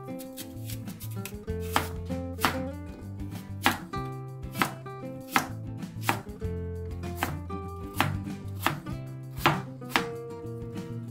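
Chef's knife chopping apple on a plastic cutting board: sharp knocks of the blade striking the board through the fruit, uneven, about one to two a second. Soft background music runs underneath.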